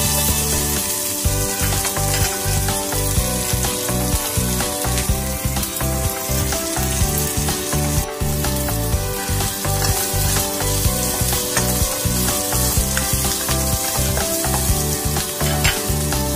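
Sliced shallots sizzling steadily in hot oil in a nonstick wok as they are stirred, with music with a steady beat playing underneath.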